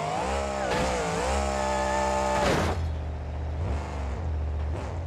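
Vehicle engine revving. The pitch climbs, holds steady for about two seconds and falls away about two and a half seconds in, then a shorter rev rises and falls near the end, over a steady low rumble.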